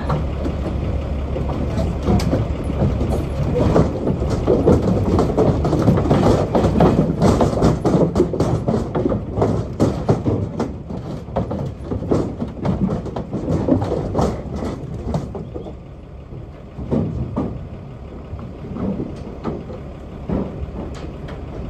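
A stock lorry's diesel engine idling with a steady low hum, while cattle clatter and knock about on the floor and sides of the livestock trailer. The knocking is busiest for the first dozen seconds and thins out about fifteen seconds in.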